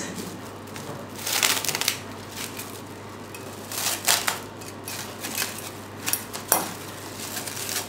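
Clear plastic cling film crinkling and crackling as hands press and smooth it into the inside of a stainless steel bowl, in irregular bursts.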